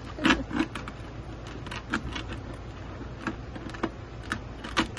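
A mesh bag of Mosquito Bits granules being handled and pushed into a plastic watering can: irregular crinkly rustles and light knocks of the bag and hands against the plastic.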